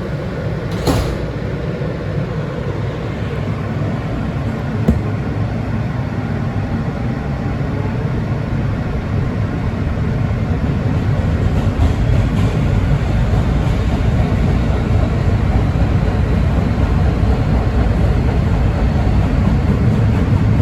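Inside an R160B Siemens subway car running between stations: a steady low rumble of wheels on rails and car noise that grows gradually louder, with a couple of sharp clicks early on.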